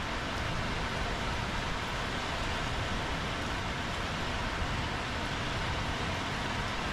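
Steady rain falling on wet paving tiles: an even hiss with no separate drops standing out.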